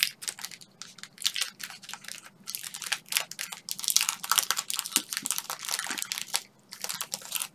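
Crinkly plastic snack wrapper being torn open and handled: a run of irregular crackles and rustles with short pauses.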